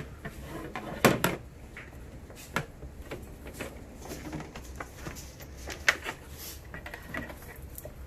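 Scattered plastic clicks and knocks as the clear dust container and its parts are fitted back into an Anway Clear Trak upright vacuum and the machine is handled. The loudest knocks come about a second in and again near six seconds.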